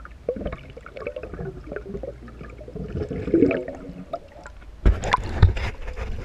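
Air bubbles gurgling and burbling past an underwater microphone. Near the end come several sharp splashes and knocks as the camera breaks the surface.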